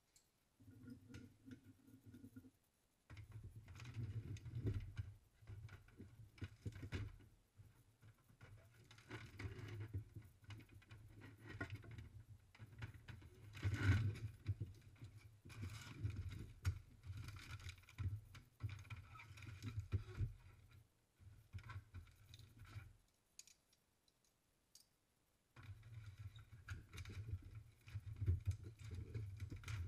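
Tongs and steel blades clinking and clattering as red-hot knife blades are handled during heat treating, over a low steady rumble that drops out for a couple of seconds about three-quarters of the way through.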